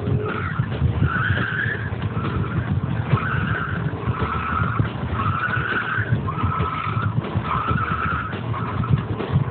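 BMW engine and exhaust running with a low, crackly rumble, overlaid by a string of about eight short high squeals, roughly one a second.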